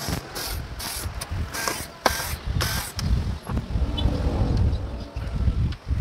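Electric screwdriver running in short bursts, about two a second, as it backs the screws out of an amplifier's metal back panel. Then comes a run of low knocks and clatter as the amplifier chassis is handled and lifted out.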